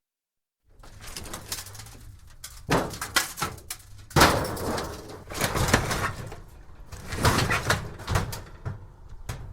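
Thin metal scrap being shifted and shaken, clattering and scraping in a dense, irregular run of small impacts. It starts after about half a second of dead silence.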